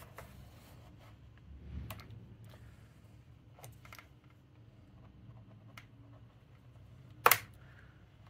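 Plastic clips of an MSI GE76 Raider's bottom cover clicking loose as a plastic pry tool works along the seam: a few faint scattered clicks, then one loud sharp snap about seven seconds in.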